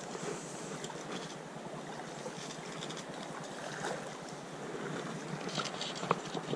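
Steady rushing and rippling of a shallow river flowing over a rocky riffle, with a few small clicks near the end.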